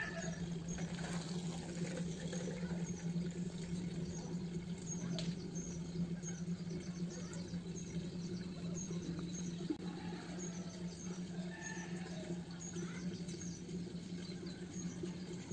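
A small bird chirping, short high chirps repeating about once or twice a second, often in pairs, over a steady low hum.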